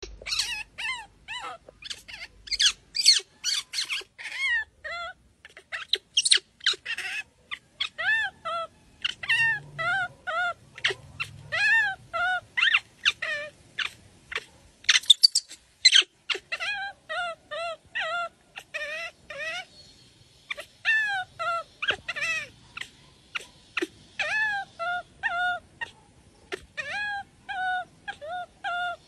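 Baby macaque crying: a rapid run of short, high-pitched whimpering calls, each rising and then falling in pitch, several a second with only brief pauses.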